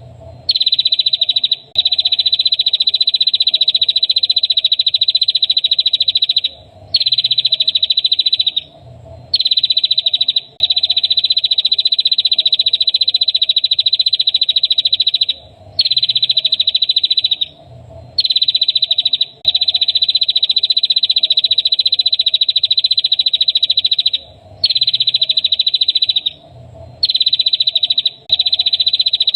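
Songbird singing a high, rapid, buzzy trill, held for one to five seconds at a time with short pauses between, over and over: a masteran recording used to teach caged songbirds.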